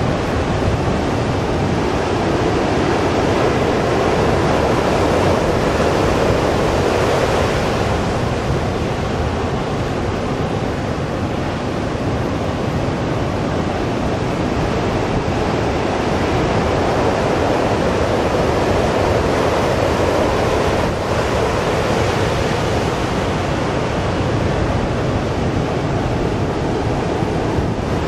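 Ocean surf breaking on a sandy beach, a steady wash of noise that swells and eases, with gusts of wind rumbling on the microphone.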